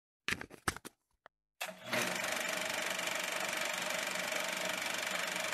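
A few quick clicks, then from about a second and a half in a steady, fast mechanical whirr that starts suddenly and holds even throughout.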